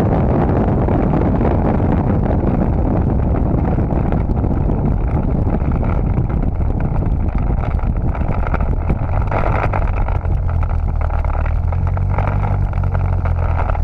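Turbocharged Toyota MR2 engine (Precision 6266 turbo) heard close up, with a heavy rush of wind and road noise over it that eases off as the car slows. In the last few seconds the engine settles to a steady low running note.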